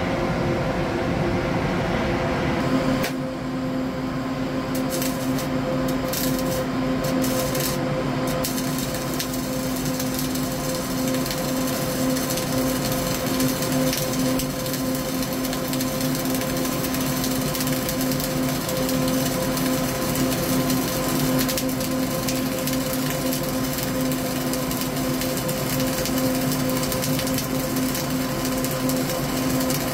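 CO2-shielded flux-cored arc welding in the vertical-up (3G) position. The arc crackles and sizzles steadily with spatter, over a steady hum.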